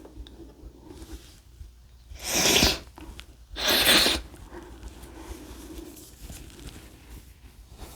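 A man sneezing twice, the sneezes about a second and a half apart, each a short loud burst.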